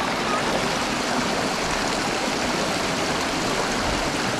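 Steady rush of a fast-flowing river below a waterfall, water running over rocks.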